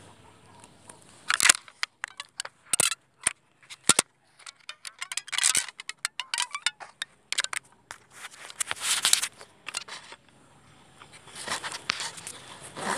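Irregular bursts of rustling and clattering noise with short near-silent gaps: handling noise from a phone jostled while riding an electric bicycle.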